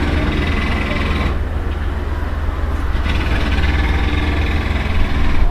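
Pneumatic jackhammer breaking up the street, heard from inside a room: rapid hammering in two bursts with a pause of a couple of seconds in between, over a steady low rumble.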